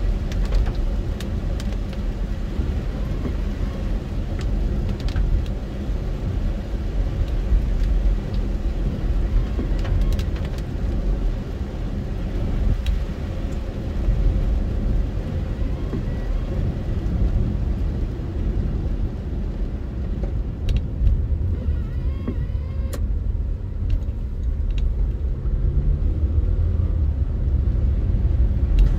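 Steady low rumble of a car's engine and tyres on a wet road, heard from inside the cabin, with a few faint ticks here and there.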